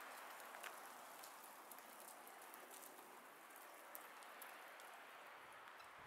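Near silence: faint outdoor background hiss with scattered soft ticks.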